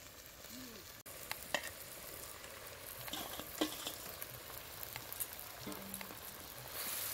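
Torn oyster mushrooms tipped into a pan of hot masala and green peas, sizzling softly, with a few sharp clicks as they land. The sizzle grows louder near the end.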